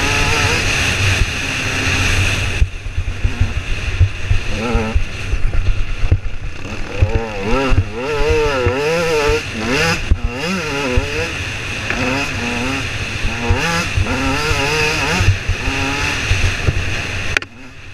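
KTM EXC 125's two-stroke single-cylinder engine revving up and down as the dirt bike rides a trail, its pitch repeatedly rising and falling with throttle and gear changes. Wind buffets the microphone throughout, and the sound dips briefly near the start and again near the end.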